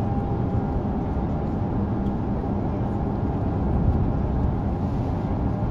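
Steady low engine rumble running without a break.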